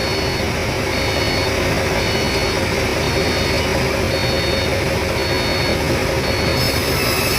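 Forklift engine running steadily under a high reversing alarm beeping about once a second.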